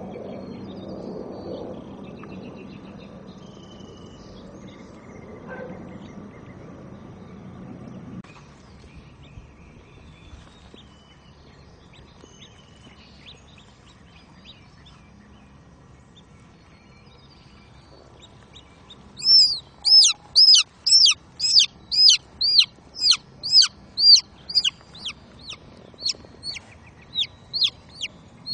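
Baby chick peeping loudly: a fast run of sharp, high, falling peeps, about two a second, starting about two-thirds of the way in. Before that there are only faint scattered chirps over low background noise.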